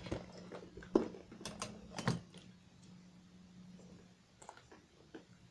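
Light clicks and taps of a clear plastic pencil case and the things in it being handled, several in the first two seconds, then a few fainter ones.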